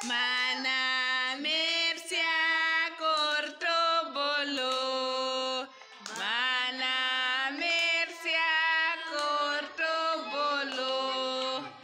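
A woman singing a slow melody in long held notes that step up and down, breaking off briefly about six seconds in.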